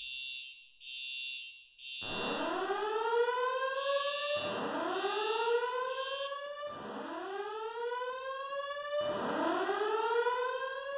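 Fire alarm voice evacuation system sounding its alert tone between announcements: four slow rising whoop sweeps, each lasting about two seconds. Over them come high-pitched beeps in groups of three, a temporal-three evacuation pattern, once at the start and again about four seconds in.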